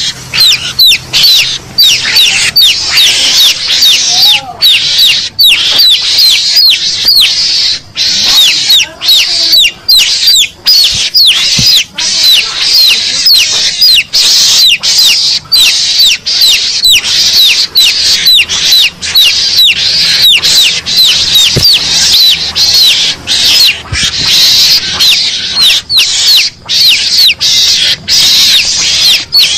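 Mongoose lure call (suara pikat garangan): a dense, unbroken run of high, quick squeaks that each slide downward, several a second.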